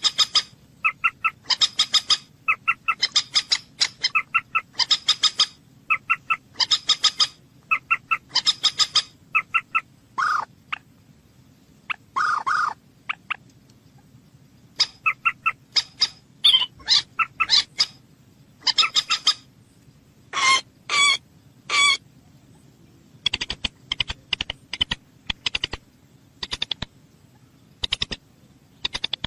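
A bird calling in short, sharp notes repeated in quick groups about once a second, with a few longer calls in the middle. Near the end the notes give way to a fast run of short clicks.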